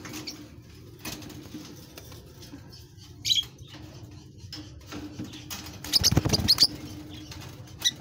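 Lovebirds moving about in a wire cage: wing flutters and scuffling on the bars, in short scattered bursts, the loudest cluster about six seconds in.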